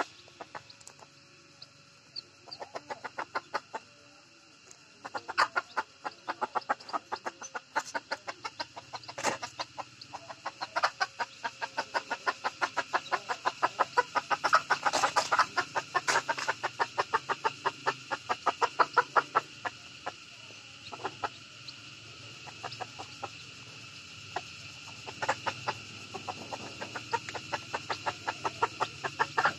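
Junglefowl hen clucking in quick runs of short calls, several a second, to her chicks. The calls come thickest and loudest in the middle and thin out for a while after.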